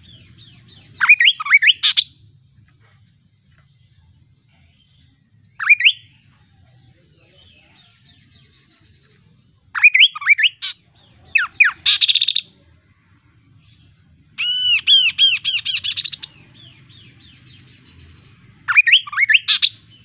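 Chestnut-capped babbler (kaso-kaso) singing: short, loud phrases of quick sweeping whistled notes, repeated six times with pauses between. Near the middle one phrase runs longer as a fast series of repeated notes lasting almost two seconds.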